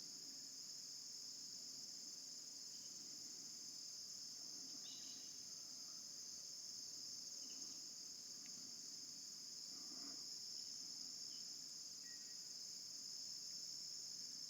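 Steady, faint, high-pitched chorus of crickets or similar insects, with a few brief faint chirps over it.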